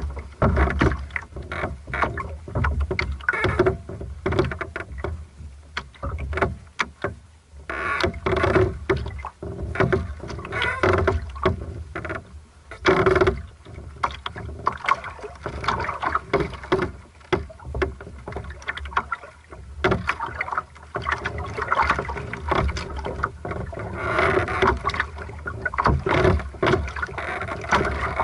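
Lake water lapping and slapping against the hull of a small sailing dinghy moving slowly, in uneven splashes and knocks heard close up.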